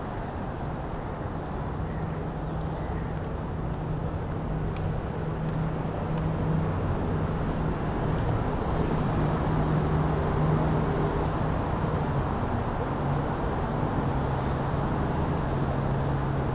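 City street traffic: a steady wash of vehicles running along a busy road, with a low engine hum, growing slowly louder.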